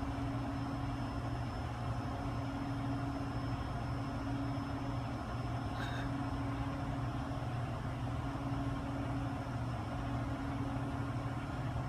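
Steady low mechanical hum with a faint high-pitched whine above it, unchanging throughout.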